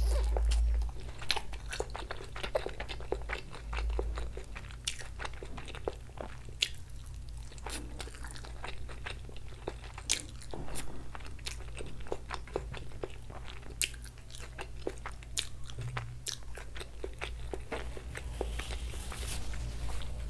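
Close-miked chewing and crunching of crispy fried food: many short sharp crunches and bites in an uneven run. Near the end a soft rustle as a tissue wipes the mouth.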